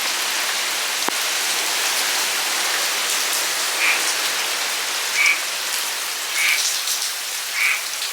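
Heavy rain falling with a steady hiss, and frogs croaking in short calls, about one a second, starting about four seconds in.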